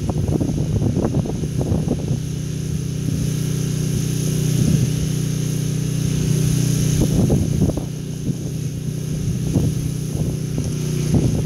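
Pressure washer engine running steadily, with the rush and spatter of the spray wand in the first couple of seconds and again on and off later.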